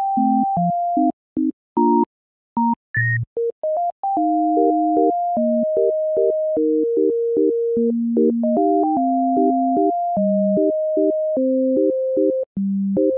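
Background music: a plain synthesizer melody of short, clean notes over a simple bass line, with a few brief breaks in the first few seconds.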